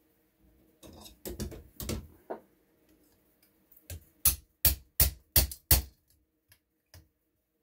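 Hammer striking a steel pin punch to drive a tight pin out of an RWS 54 Air King's trigger group: a few duller knocks at first, then five loud, sharp metallic strikes about three a second in the middle.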